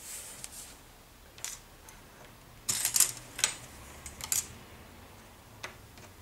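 Thin plastic model-kit pieces and a plastic glue bottle being handled and set down on a cutting mat: a few light clicks and rustles, the loudest cluster about three seconds in and a last single click near the end.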